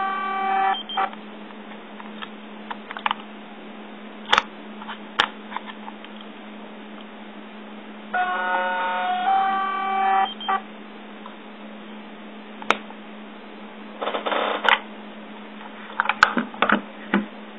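Yongnuo YN568EX speedlite flash with small electro-mechanical sounds: its zoom motor whines for about two seconds in the middle, followed by sharp clicks and a short rattling burst near the end, over a steady low hum.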